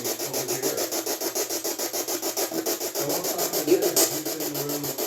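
The audio output of a ghost-hunting detector: steady scratchy static pulsing about seven times a second, with brief warbling tones coming and going underneath.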